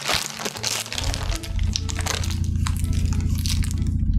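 Plastic zip-lock bags crinkling and crackling as they are handled and opened. About a second in, a steady low rumble comes in and stays, the sound of a plane passing overhead.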